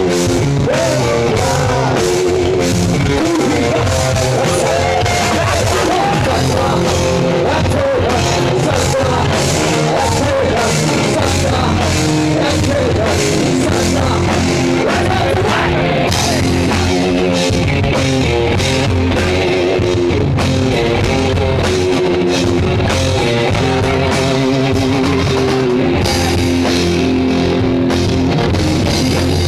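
A rock band playing live: drum kit, electric guitars and bass in a loud, steady groove, with a singer's voice over it.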